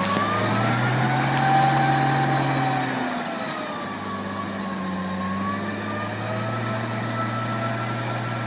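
Off-road truck's engine running steadily at low speed as it crawls through mud and standing water, its pitch slowly rising and falling a little.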